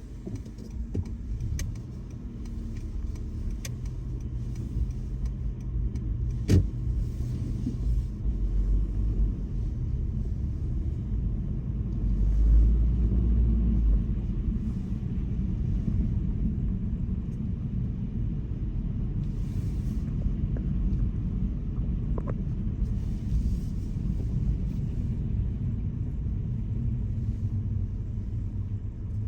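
Car driving: a steady low rumble of engine and tyres on the road, swelling briefly near the middle. A single sharp click comes about a quarter of the way in.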